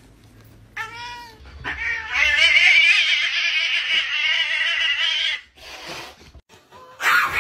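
A domestic cat gives a short meow, then a long, loud, wavering yowl lasting about four seconds while swatting at a dog: an angry, defensive cat warning the dog off. A brief noisy burst follows near the end.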